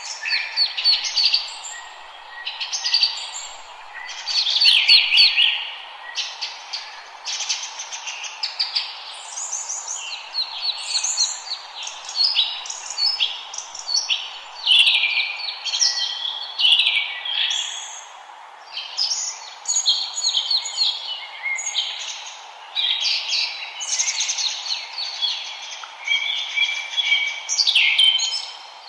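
Forest songbirds singing in a dense chorus, several birds overlapping with quick chirps and trilled phrases, over a steady background hiss.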